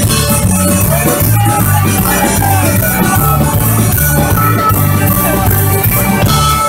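Live folk band playing an upbeat number with a steady drum-and-bass beat under the melody.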